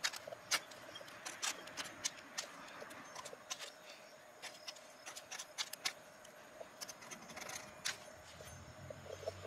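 Metal nail file scraped again and again down a ferrocerium fire-starter rod, a series of short, irregular scrapes. The file's edge is rounded, so it takes a lot of force to throw sparks.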